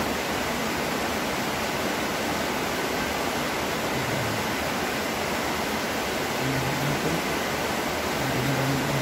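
Steady, even hiss of background noise, unbroken throughout, with a faint high steady tone in it.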